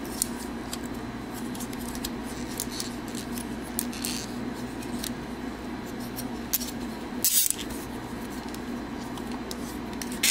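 Small clicks and rattles of a hard-plastic transforming toy's parts being handled and shifted, with a louder clack about seven seconds in. A steady low hum lies underneath.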